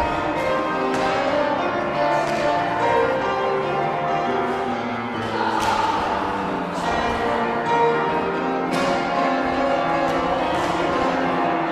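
Music with pealing, bell-like tones: several overlapping held notes and a few sharp struck accents.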